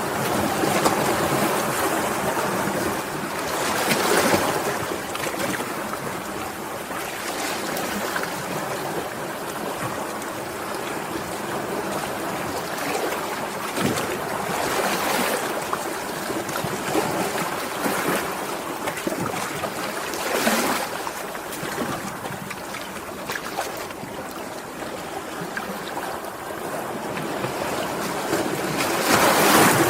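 Sea waves washing ashore: a steady rush of surf with a few louder surges as bigger waves break.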